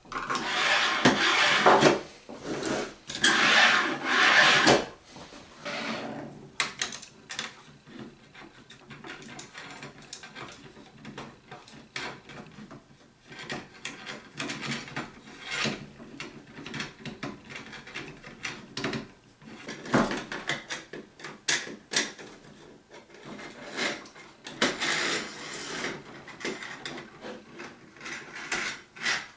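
Parts and tools of a 3D printer kit handled during assembly: rubbing and scraping with scattered clicks. There are louder scraping bursts in the first few seconds and again near the end.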